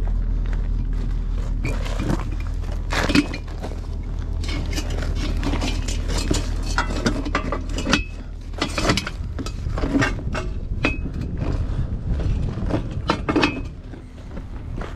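Steel tow dolly clanking and clinking as it is carried and set down beside a car's wheel, with footsteps on gravel, over a steady low hum.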